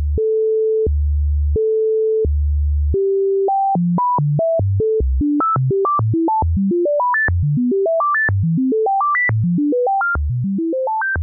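Synthesizer oscillator in Voltage Modular, its pitch set by a ramp LFO through the Septitone quantizer so that it plays discrete notes of C major. At first it switches slowly between a low note and a higher one. From about three and a half seconds in, as the gate speeds up, it climbs in quick stepped notes from bass to high, drops back and repeats about once a second.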